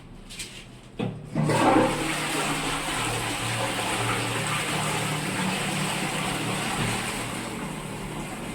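A WC being flushed from its flush tank: a sharp knock of the flush being operated about a second in, then a steady rush of water into the pan that eases slightly near the end.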